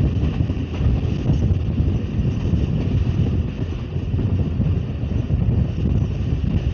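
Wind buffeting the microphone at the open window of a moving passenger train, over the steady running rumble of the train.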